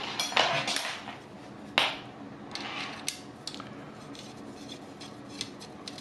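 Metal campfire tripod parts clinking and scraping as they are twisted and fitted together. The loudest scrapes and a sharp clink come in the first two seconds, followed by lighter ticks.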